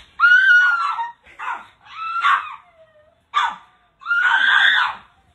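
Small brown poodle giving a series of loud, drawn-out whining yelps: three long cries of about a second each, with shorter yelps between.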